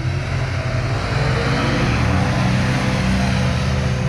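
Car driving: the engine runs steadily, rising in pitch through the first second or so as it speeds up, with a steady rush of road and wind noise.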